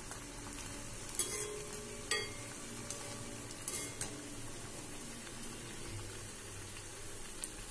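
Cabbage vadai deep-frying in hot oil in a kadai: a steady sizzle, with a few sharp taps and scrapes of a slotted ladle against the pan as the vadai are turned, about one, two and four seconds in.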